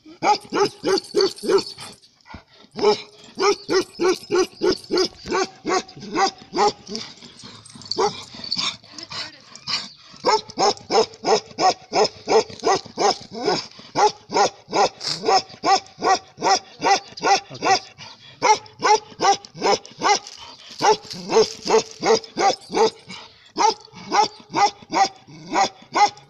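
Ladakhi male guard dog barking rapidly and continuously, about three to four barks a second, with a brief pause about two seconds in.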